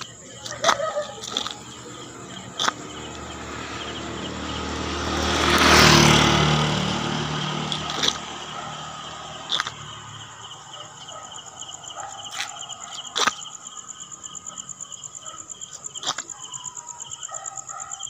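Night insects trilling steadily, one high pulsing trill and a higher steady whine, while a vehicle passes on the road, swelling to its loudest about six seconds in and then fading. A few sharp clicks are scattered through.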